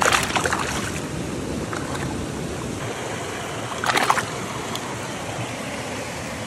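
Shallow stream water running steadily, with splashes at the start and again about four seconds in from a rainbow trout thrashing in the shallows.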